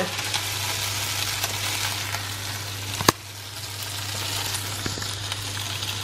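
Diced beef sizzling as it fries in a pan, over a steady low hum. One sharp click about three seconds in, after which the sizzle is briefly softer.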